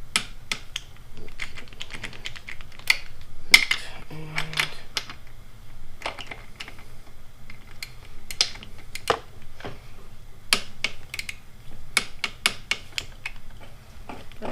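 Irregular sharp clicks and clinks of hand tools and metal parts being handled while fitting a motorcycle's handlebar riser and damper, with a brief low hum about four seconds in.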